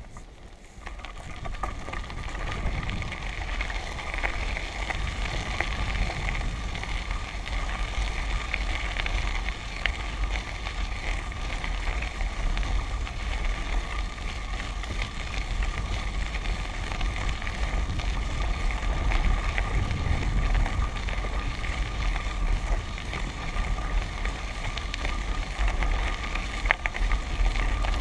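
Wheels rolling and crunching over a gravel road, with wind rumbling on the microphone. The noise builds over the first two seconds as it gets moving, then runs steadily, with a faint steady tone running through it.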